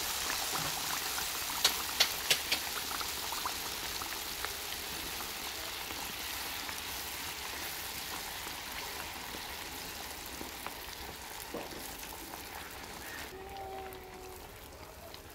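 Hot oil sizzling and bubbling around a batter pancake frying in a flat pan, with three sharp pops about two seconds in. The sizzle slowly dies down as it goes on.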